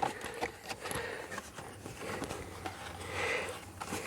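Small scattered clicks and rustles of plastic steering-column parts and wiring being handled and fitted into place, with a slightly louder rustle about three seconds in.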